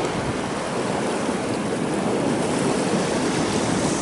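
Surf breaking over a river-mouth bar and against rocks: a steady rush of waves.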